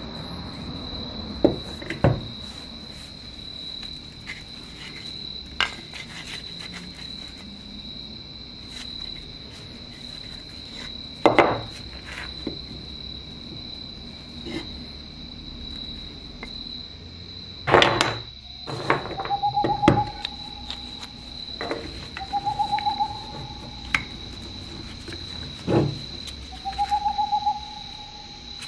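Knocks and clacks of a metal replica revolver and wooden grip blocks being handled and set down on a wooden workbench, a few sharp ones scattered through, against a steady thin high trill. Three short buzzing pulsed notes come in the second half.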